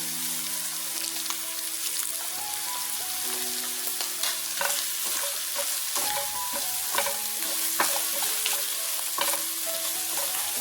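Tomatoes, garlic and mushrooms sizzling steadily in a pan, with a few clicks and taps of a spoon stirring against the pan.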